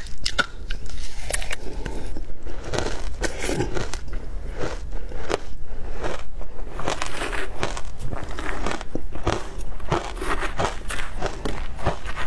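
Close-miked crunching and chewing of a mouthful of ice coated in matcha and milk powder, crackling bites throughout. Near the end a metal spoon scrapes into the ice in the plastic box.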